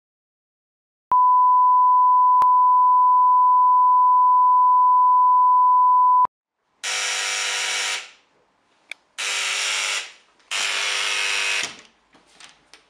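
A steady 1 kHz test-card beep, the reference tone that goes with colour bars, sounds for about five seconds. Then an electric door buzzer sounds three times in harsh bursts of about a second each.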